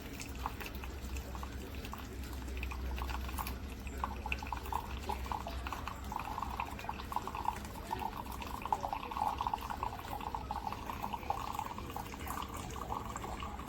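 Keurig K-Brew+Chill single-serve coffee maker dispensing liquid into a cup: a crackly, bubbling trickle that grows stronger a few seconds in, over a low hum that fades after the first few seconds.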